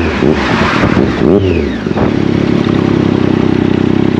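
Motorcycle engine revs rising and falling twice in quick succession, then settling into a steady note about two seconds in.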